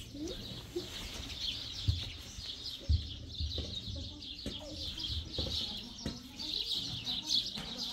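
Many small birds chirping continuously in a dense high-pitched chatter, with a couple of low thumps about two and three seconds in.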